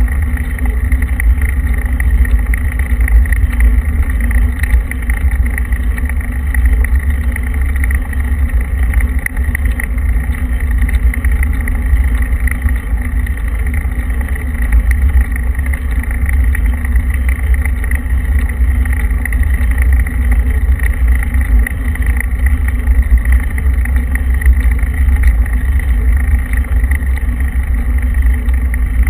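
Steady rumbling driving noise of a moving vehicle, picked up by a camera mounted on it, with no change in pace.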